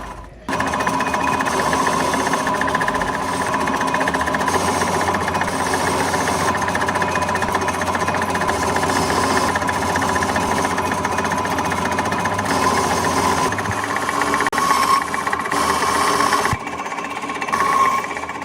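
Workshop machinery running steadily for a truck axle repair, a continuous fast buzzing rattle with a steady whine, starting abruptly about half a second in.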